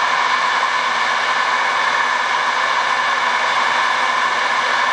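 Handheld electric heat gun blowing steadily, a constant whooshing hiss, held point blank to heat vinyl wrap film.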